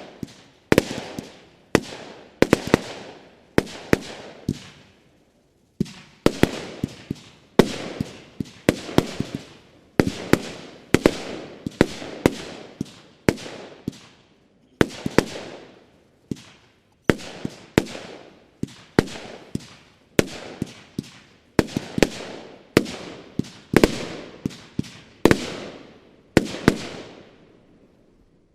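Multi-calibre firework battery (20, 25 and 30 mm, 91 shots) firing: a long run of sharp bangs, several a second in clusters with brief pauses, each trailing off, until the last shots die away about a second before the end.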